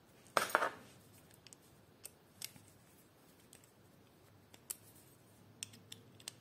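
Hex key handled against a Tektro mechanical disc brake caliper: a louder clatter about half a second in, then scattered light metal clicks as the key is fitted into the caliper bolts and turned to screw them in.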